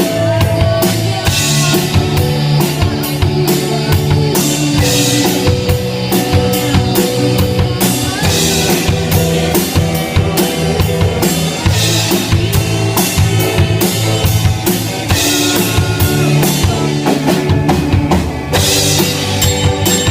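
Band music led by a drum kit keeping a steady beat, with bass drum and snare prominent under pitched instruments.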